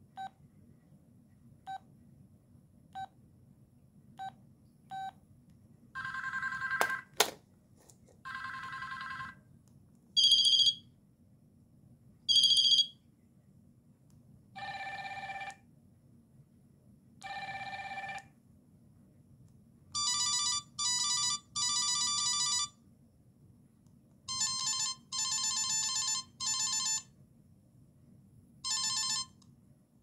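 Audiovox CDM-8940 flip phone: a few short keypad beeps as the menu is scrolled, then a string of electronic bell ringtones previewed one after another, each ringing for a second or two before the next one starts. There is a sharp click about seven seconds in.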